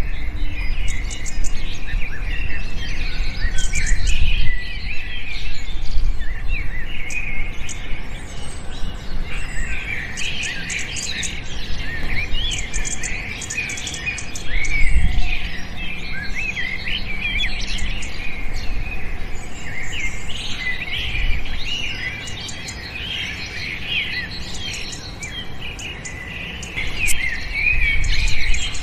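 A flock of small birds chirping and twittering, many calls overlapping in a dense, continuous chorus. A low rumble runs underneath and swells about halfway through and again near the end.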